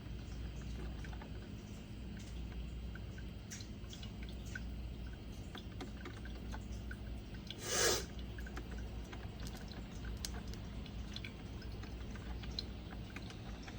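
Hamilton Beach 12-cup programmable drip coffee maker brewing, with coffee dripping into the carafe and small scattered ticks over a steady low hum. A short, loud hiss comes about eight seconds in.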